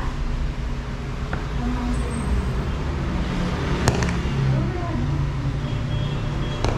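Steady low rumble of street traffic, with a single sharp clack about four seconds in as a bowl is set down on the table.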